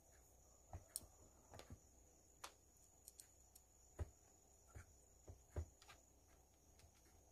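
Near silence, with faint, scattered clicks and taps of small plastic radio parts being fitted back into a portable radio's case by hand.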